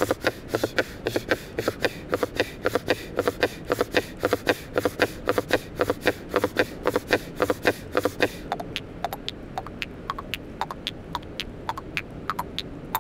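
Khomus (Yakut jaw harp) played in a quick, even rhythm of sharp percussive plucks, about four or five a second, with little drone beneath. About eight seconds in the strokes turn fainter and sparser.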